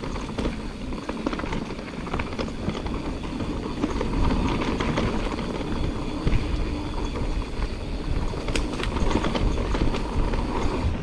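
Mountain bike descending a rough trail: tyres rolling and rattling over the ground, with the bike clattering in many small knocks and a low rumble of wind on a chest-mounted microphone.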